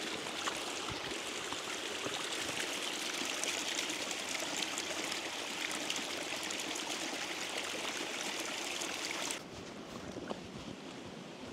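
Small waterfall splashing steadily over mossy stones. About nine seconds in it cuts off suddenly, leaving a quieter steady outdoor hiss.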